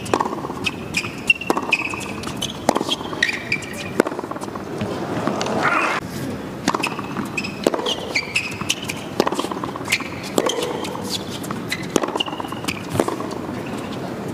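Tennis rally on a hard court: a ball struck back and forth with sharp pops about once a second, mixed with brief high squeaks of tennis shoes on the court surface.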